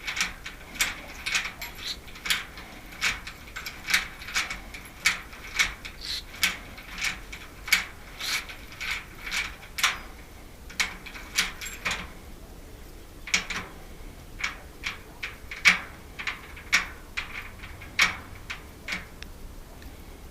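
A metal mechanism clicking over and over, about one to two clicks a second, then a short pause and more clicks coming less evenly.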